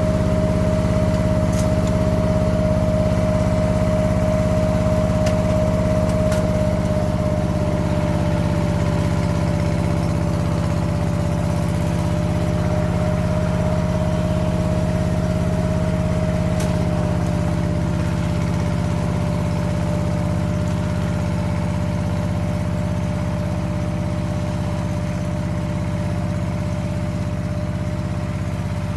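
Single-cylinder diesel engine of a two-wheeled walking tractor (power tiller) running steadily while it pulls a plough to make furrows, growing slightly quieter in the second half.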